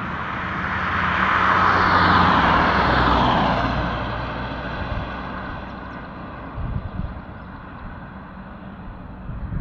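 Road traffic passing close on a highway: engine hum and tyre noise swell to a peak about two seconds in, then fade with a falling pitch as the vehicle goes by.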